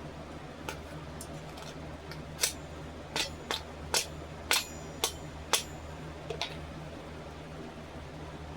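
Sharp metallic clicks and taps, about eight in quick succession over roughly four seconds starting a couple of seconds in, from the metal fittings of a Japanese sword being handled and worked off the tang. A steady low hum runs underneath.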